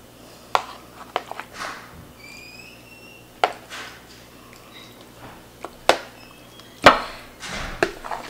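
Metal kitchen tongs clacking against ceramic plates as braised chicken thighs are lifted and set down on a platter: a handful of sharp, scattered clicks and knocks with softer wet sounds between them, the loudest knock about seven seconds in.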